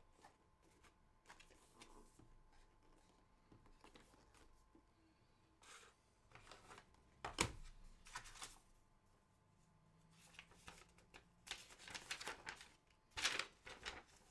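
Faint rustling, scraping and tapping of a cardboard fan box and its paper leaflet being handled and opened, with a louder knock about halfway through and a cluster of sharper rustles near the end.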